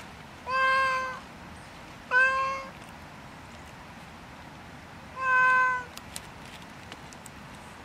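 Domestic cat meowing three times: short, level-pitched meows, the first two close together and the third a few seconds later.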